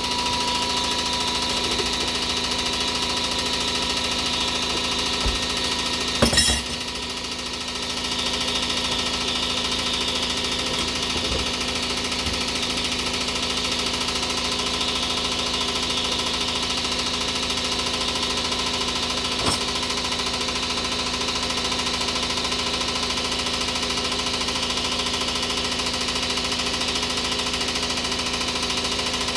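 Electric air compressor running steadily as it refills its tank after heavy air-tool use. A short, loud burst about six seconds in.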